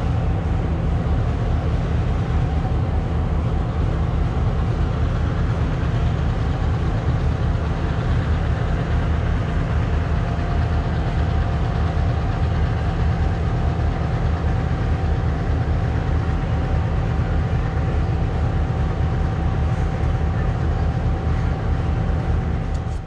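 Diesel locomotive engine running steadily at idle, a deep even rumble with a thin steady whine above it.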